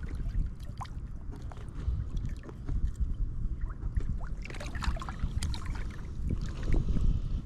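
Steady low wind rumble on the microphone with scattered light knocks, clicks and small water splashes, heard while fishing from the water.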